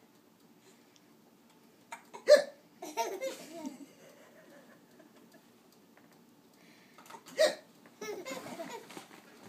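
A young child hiccups twice, about two seconds in and again about seven seconds in. Each sharp hiccup is followed by a second or so of laughing at it.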